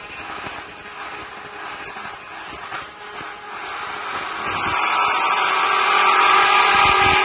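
Rolling-shutter bottom-section roll forming machine running, with its steel cut-off saw unit over the profile. The steady machine noise is lower at first and grows louder from about four seconds in, with a steady whine.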